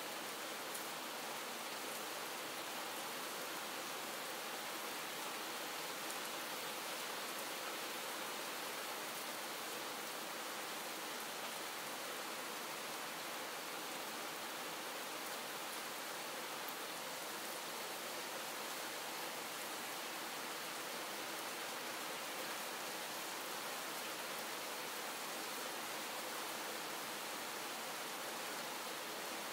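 Steady, calm rain falling: an even, unbroken hiss with a few faint drop ticks.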